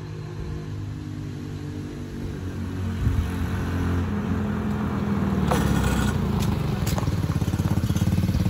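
The 125cc engine of a gas-converted golf cart running as the cart drives up and past, getting louder as it nears, with a few sharp rattling clicks about halfway through.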